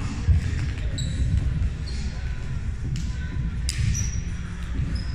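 Sneakers squeaking briefly on a hardwood gym floor and a few sharp slaps of a roundnet ball being hit, over low thudding and the echo of a large sports hall.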